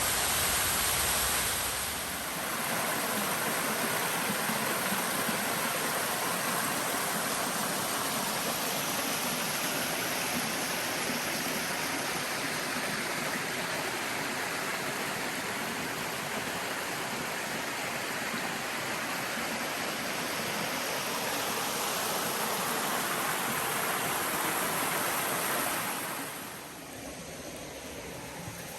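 Waterfall rushing: a steady wash of falling water that drops noticeably in level about three seconds before the end.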